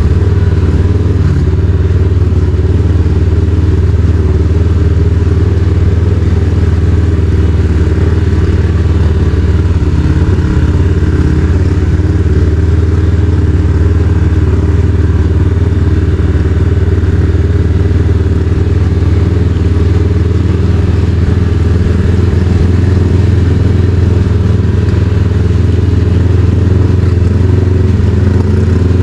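Kawasaki KRX side-by-side's engine running loud and steady, a low even drone while crawling slowly over a rocky trail.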